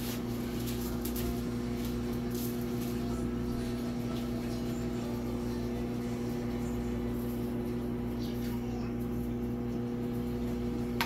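A steady hum with several held tones, under faint light rattles of seasoning being shaken from a shaker onto raw meat.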